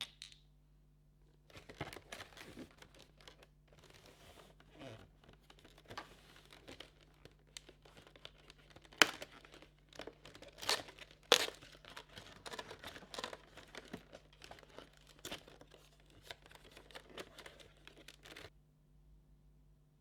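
Advent calendar packaging being torn open and crinkled by hand: a long run of crackling, rustling and tearing with a few sharp snaps about halfway through, stopping near the end.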